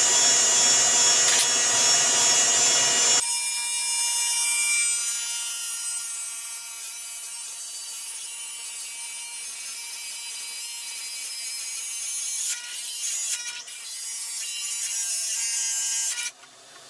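Radial arm saw fitted with an abrasive cut-off wheel, running with a steady high whine as it grinds through round metal tubing. The sound changes abruptly about three seconds in, surges unevenly near the end, and cuts off shortly before the end.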